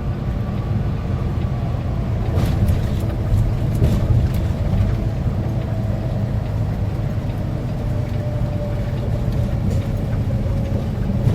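Semi truck heard from inside the cab while driving an exit ramp: a steady low engine and road rumble with a faint steady hum, and a few light rattles a couple of seconds in.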